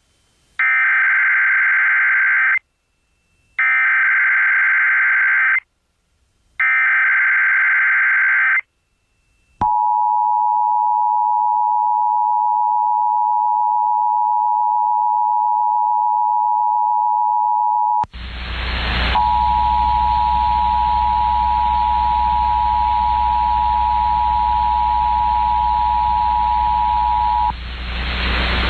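Emergency Alert System test tones: three screeching digital SAME header bursts of about two seconds each, a second apart, then the steady two-tone EAS attention signal held for about eight seconds. About eighteen seconds in it cuts to loud radio static, and the two-tone attention signal sounds again over the hiss for about eight seconds.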